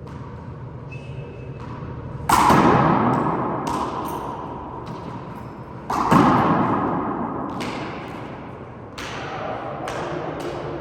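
Two heavy thuds, about two and six seconds in, each ringing out and fading over a couple of seconds, with lighter sharp knocks scattered between and after them.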